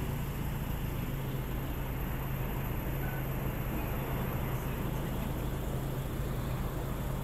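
Steady low engine hum over a constant wash of street traffic noise.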